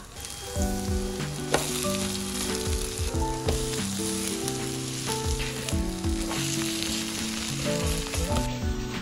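Cabbage-and-egg pancake batter sizzling in hot oil on a nonstick griddle, with occasional light knocks and scrapes as a metal spoon spreads and presses the pancakes.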